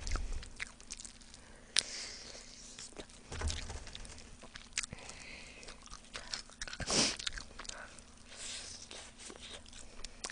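Close-miked eating of spicy fried chicken: biting and chewing with wet mouth clicks and small crunches, plus one louder crackle about seven seconds in.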